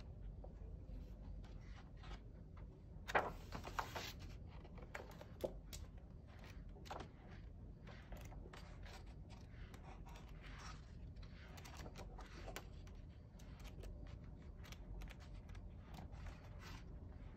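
Paper pages of a cookbook being turned by hand: soft rustles and flicks, one after another. The loudest page flip comes about three seconds in.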